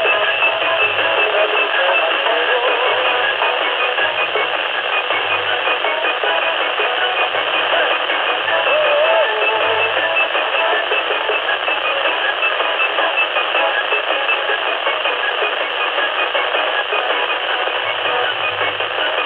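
Baofeng handheld radio's speaker receiving a UHF military communications satellite channel at 257.150 MHz. The sound is a steady, narrow rush of static with faint wavering tones now and then.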